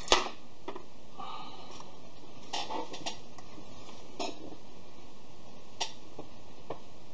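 A screwdriver set down on a sheet-metal tray with a sharp clink right at the start, then a few lighter, scattered metallic taps and clinks as small brass carburetor jets and tools are handled on the tray.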